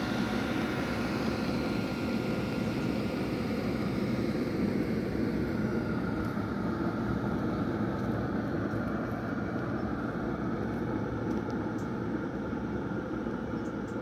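8 kW 12 V diesel air heater running in its aluminium box: a steady blower-and-burner rush with a faint whine that fades about halfway.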